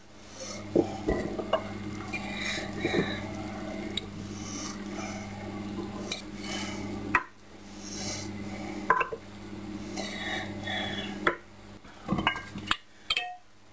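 A wooden spoon scrapes and knocks a chunky tuna pasta mixture out of a glass bowl into a glass baking dish, with soft clinks of glass and spoon, and near the end a colander is tipped over the dish. A steady low hum underneath cuts off about seven seconds in.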